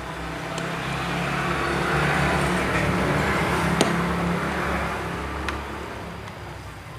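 A motor vehicle passing by: its engine hum and road noise swell to a peak two to four seconds in and fade away. A sharp click sounds just before the peak ends.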